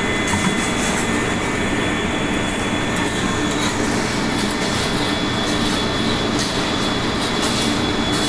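Ship's engine-room machinery running: a loud, steady drone with a low hum and a thin high whine over it.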